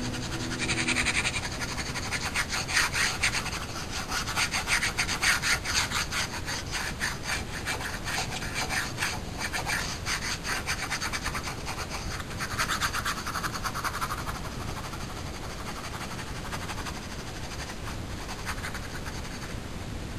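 A pen nib scratching on paper in rapid hatching strokes, several a second. The strokes grow fainter and sparser in the last few seconds.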